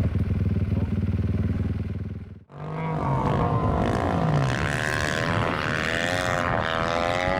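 Snowmobile engine running steadily with a low drone, cut off suddenly about two and a half seconds in. Then a snowmobile engine revs up and down, its pitch rising and falling.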